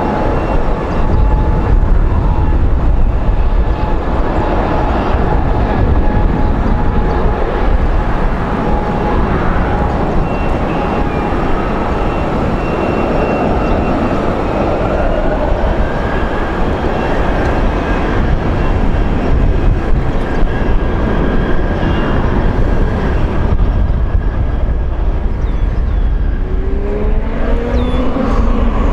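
Airbus A220's Pratt & Whitney PW1500G geared turbofan engines howling at low thrust: steady whining tones over a deep rumble, with one tone rising in pitch about halfway through. Near the end a second, lower howl starts and rises in pitch.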